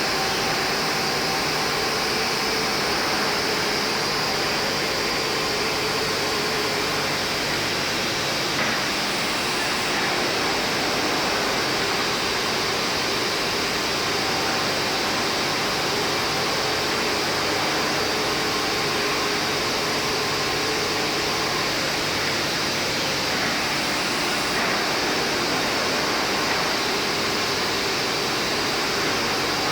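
Industrial wide-belt panel sanding machine (IMEAS LCSI 190, two sanding heads) running steadily under test: an even, continuous machine hiss with a faint hum.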